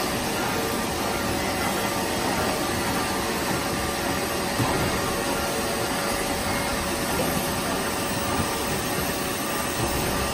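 Semi-automatic carton folder-gluer running: a steady mechanical whir of motors, rollers and conveyor belts with a faint steady hum, and a few light clicks.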